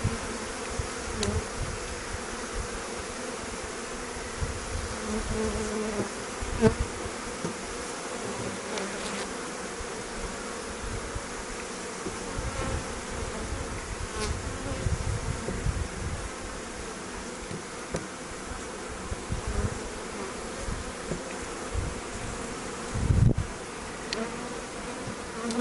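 A newly installed package of honey bees buzzing steadily around an open wooden hive box. A sharp knock comes about a third of the way in and a duller thump near the end.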